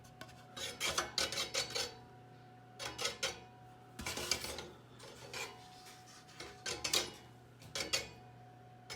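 Casablanca ceiling fan turning at low speed, one blade scraping against the top of the fan housing in short raspy bursts about once a second over the motor's faint steady hum. The scrape comes from the heavy blade drooping and wobbling far too much, so it drops and rubs the housing as it comes round.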